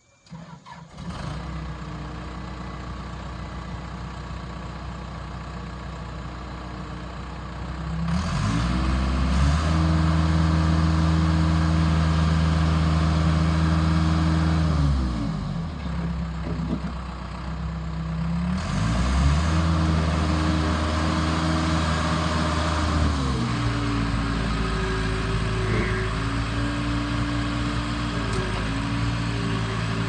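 Case 445 skid steer loader's diesel engine starting and running at idle, then revved up and held high for several seconds, dropped back, revved up and held again, and finally settling to a lower, varying speed as the loader moves.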